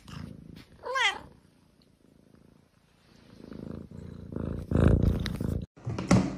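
A kitten gives one short mew about a second in, its pitch wavering up and down. From about three seconds in it purrs close up, growing louder before cutting off suddenly near the end.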